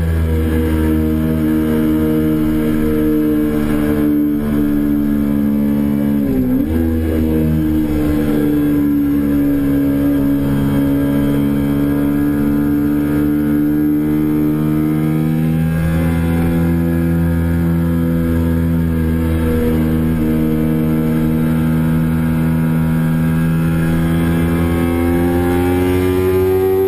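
2008 Kawasaki Ninja 250R's parallel-twin engine running hard under way, heard from on board the bike. Its pitch breaks briefly about six seconds in, then sags slowly and climbs again near the end.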